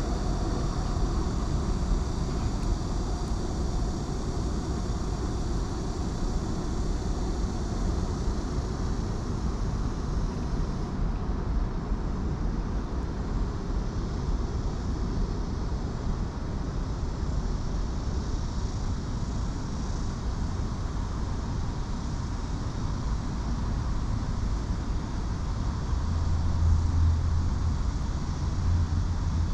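Steady rumble of city traffic across the river. Near the end a deeper low hum grows louder.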